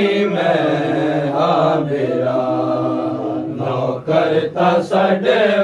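Men's voices chanting a Muharram noha (mourning kalam) in a slow, drawn-out melody. Long held notes give way to shorter, broken syllables near the end.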